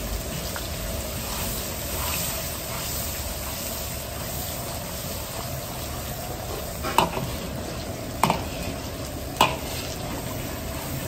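Beaten eggs sizzling and frying in hot butter in an iron wok while a steel ladle stirs them. Three sharp clinks of the ladle against the wok come in the second half.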